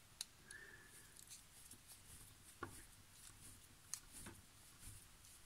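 Faint, scattered clicks and scrapes of a small precision screwdriver turning tiny screws into the metal base of a diecast toy car.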